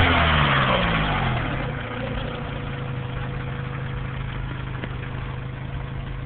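Acura B18 four-cylinder engine settling from a rev back to idle over the first two seconds, then idling steadily, with the metallic grinding of a failing water pump bearing.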